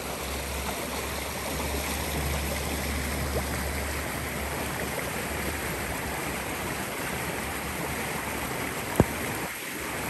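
Fast-running floodwater rushing past in a steady wash, with a single sharp knock about nine seconds in.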